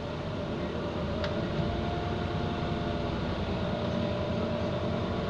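Iveco Crossway city bus running, heard from inside the passenger cabin: a steady engine drone with a faint whine that rises slowly as the bus gathers speed, and a single short click about a second in.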